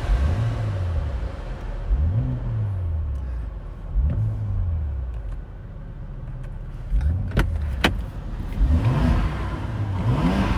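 BMW X3 M Competition's twin-turbo 3.0-litre straight-six blipped about six times, each rev rising and falling in pitch, with a lull past the middle. Two sharp cracks come a little after halfway.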